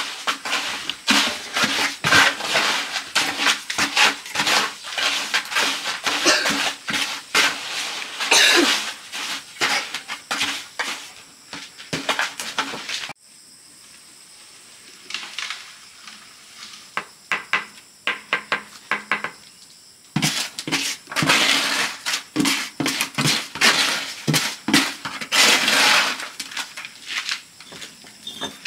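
Metal tool scraping and clinking against brick and cement mortar, a rapid run of clicks and scrapes. About halfway through it thins to scattered taps for several seconds, then the rapid scraping starts again.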